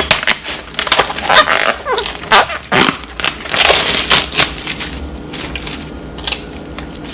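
Plastic cling wrap crinkling and tearing as it is pulled off a foam meat tray: irregular crackling, busy for the first few seconds, then thinning out to scattered crackles.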